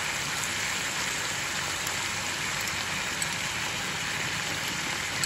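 Vegetables stir-frying in a pan, with a steady sizzle.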